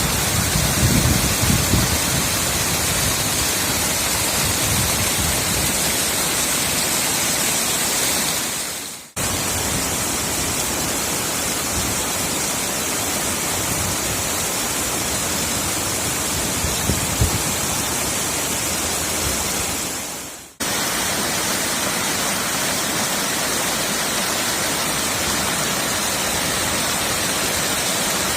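Steady rush of running water, like a swollen stream or small waterfall, heard in three stretches that each fade out and cut abruptly to the next, about nine and twenty seconds in.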